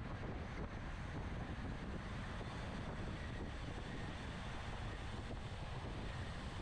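Steady wind rushing over the microphone of a bicycle moving at racing speed, with a low road-and-tyre rumble underneath.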